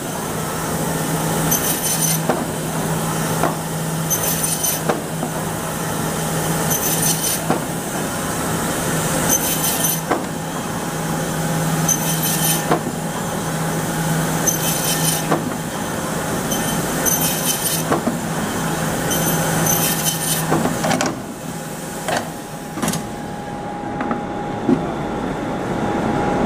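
Pacific Y420A automatic meat bandsaw running, its motor humming steadily, with a short sharp mechanical noise about every two to three seconds as the machine cycles through each cut. About twenty seconds in, the hum stops and the noises thin out.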